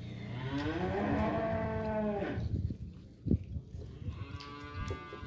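Two drawn-out animal calls, the first about two seconds long and rising then falling in pitch, the second shorter, with a sharp click between them.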